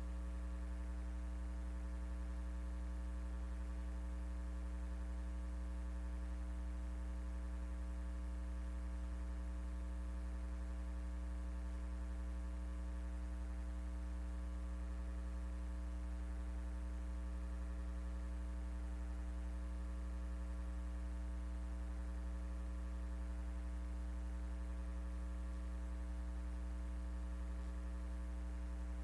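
Steady low electrical hum, a constant buzz with evenly spaced overtones that never changes, typical of mains hum on a recording line carrying no programme sound.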